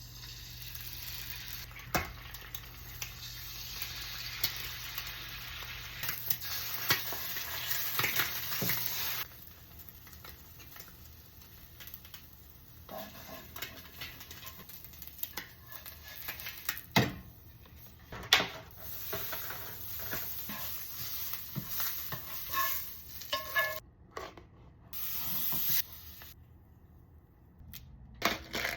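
Food sizzling in a frying pan for the first nine seconds or so. After that come scattered clinks, knocks and scrapes of utensils against pans and dishes, with a short hiss of frying again near the end.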